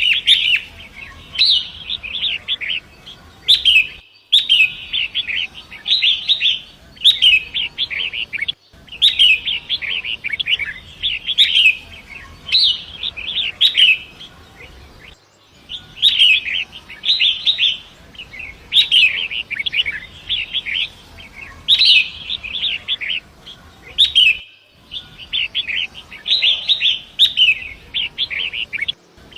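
Wild long-tailed shrike singing: quick clusters of short chattering notes, one after another about every second, broken by a few sudden split-second dropouts.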